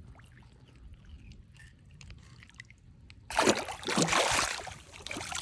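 A catfish let go into pond water, splashing and thrashing loudly for about two seconds, starting a little over three seconds in, after a stretch of faint handling noise.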